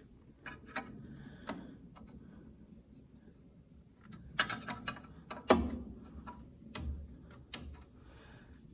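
Metal hand tools clicking and clinking as a wrench is picked out and handled: a string of irregular sharp clicks, with a cluster about halfway through and the loudest clank just after.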